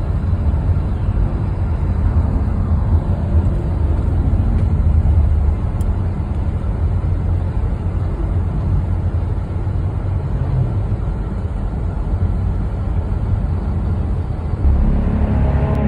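Steady low rumble of a car driving at highway speed, heard from inside the cabin: tyre and engine noise. Music fades in near the end.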